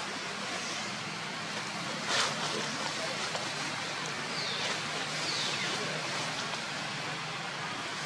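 Steady outdoor background hiss, with one brief sharp noise about two seconds in and two faint falling whistles around the middle.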